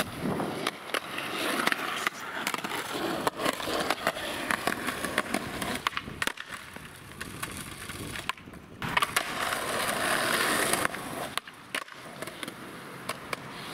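Skateboard wheels rolling over rough concrete, with repeated sharp clacks of the board popping and landing during flip tricks. The sound drops out abruptly a few times.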